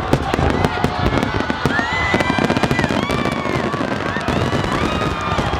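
Aerial fireworks bursting and crackling in a dense, rapid barrage. Rising and falling high tones sound over the crackle from a little under two seconds in.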